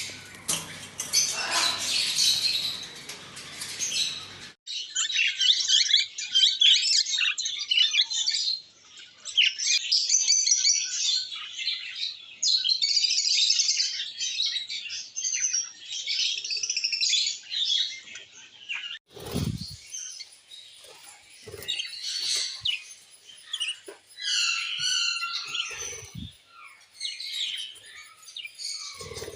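Small pet parrots chirping and chattering in quick, dense high calls, with abrupt changes about four seconds in and about two-thirds of the way through, and a few soft thumps near the end.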